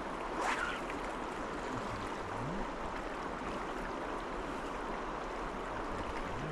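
The river Tay's water flowing in a steady rushing wash, with a brief swish about half a second in.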